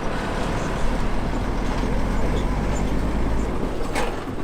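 Steady low engine rumble with a sharp click about four seconds in.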